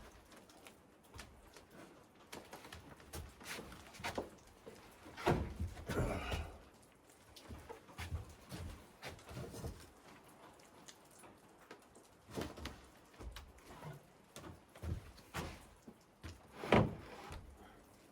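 Heavy handmade wooden door being hoisted and worked into its frame: scattered thumps, knocks and scrapes of wood on wood. The loudest come about five to six seconds in and again near the end.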